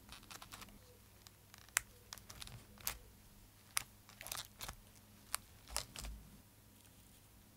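Fingers pressing and smoothing small cork pieces and paper tape onto a spiral-bound paper journal page: scattered sharp clicks and crinkly paper rustles, with a busier cluster near the middle.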